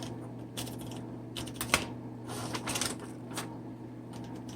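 Smith Corona Coronet Electric typewriter keys being typed, with about six sharp, irregularly spaced clacks of the powered type bars. A steady low hum from a room heater runs underneath; the typewriter's own motor is barely audible.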